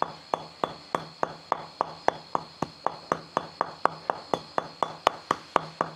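The base of a glass bottle pounding raw snake meat and bones on a chopping board, about three steady strikes a second, crushing the hard bones to a paste.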